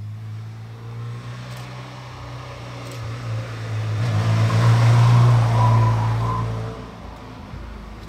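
Classic rally car's engine running as the car drives past, growing louder to a peak about five seconds in and fading again.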